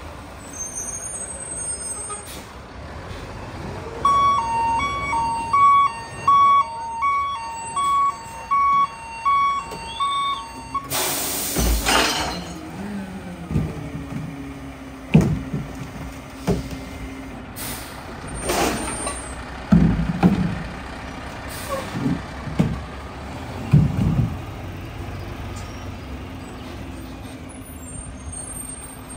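Mack Granite rear-loader garbage truck backing up, its reversing alarm beeping in two alternating tones for about seven seconds. A loud air-brake hiss follows, then the diesel engine runs with a series of sharp metallic clanks.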